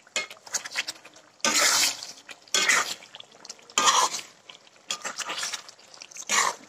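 A spoon stirring and scraping half-cooked chicken in a cooking pot, in short strokes about once a second.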